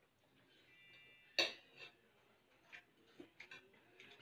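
Metal spoons and forks clinking against plates during a meal: one sharp clink about a second and a half in, then a few fainter taps.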